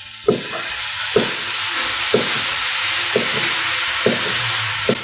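Wheat-gluten strips sizzling in a hot oiled frying pan, the sizzle jumping up about a third of a second in as the liquid seasoning hits the pan. Chopsticks knock against the pan about once a second as the strips are stirred.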